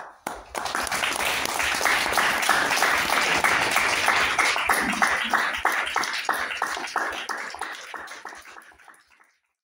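Audience applauding: many hands clapping, rising quickly at the start and then thinning and fading away near the end.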